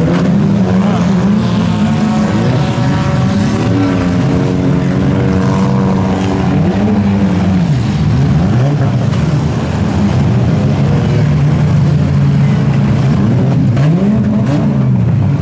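Engines of several compact demolition-derby cars revving hard under load, their pitch climbing and falling as they push against each other and spin their wheels in the dirt.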